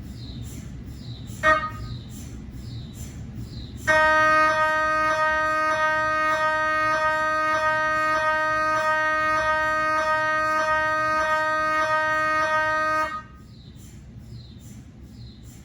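GE 3T MRI scanner's gradient coils running a cardiac scan sequence: after a short single tone, a loud steady buzz of several stacked tones starts about four seconds in, pulsing about twice a second, and cuts off abruptly near the end. A faint rhythmic chirp, about twice a second, repeats underneath.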